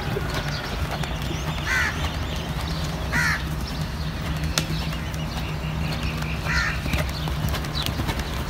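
A horse's hoofbeats as it is ridden around a dirt arena, over a steady low rumble. A bird calls briefly three times: about two seconds in, about three seconds in, and a little after six seconds.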